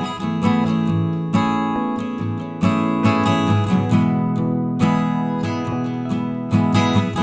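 Background music: acoustic guitar strumming with a steady rhythm.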